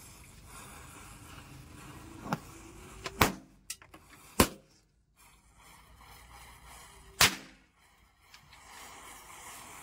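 Small firecrackers set off by a burning matchstick chain, going off in sharp cracks: a small pop about two seconds in, then three loud bangs about three, four and a half and seven seconds in, with a few lighter pops between the first two.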